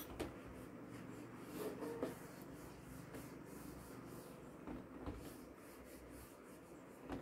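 Cloth wiping a whiteboard clean: faint rubbing in a few short strokes.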